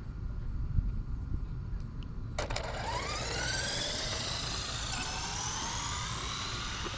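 Brushless RC car motor (the Rustler's Velineon 3500 system) breaking into a high whine a couple of seconds in, its pitch climbing steadily as the car accelerates on a speed pass, dipping briefly, then rising again.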